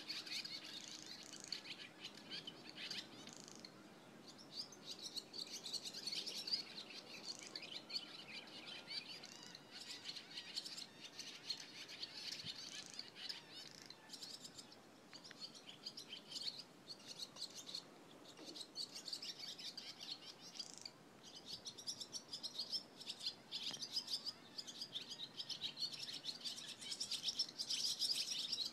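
Barn swallows twittering, a fast stream of high chirps that keeps up almost without a break and thins briefly a couple of times.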